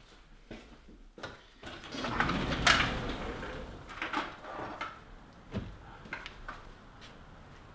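Sounds of a person moving about a room: scattered light clicks and knocks, with a louder, noisy swell lasting a second or so about two seconds in.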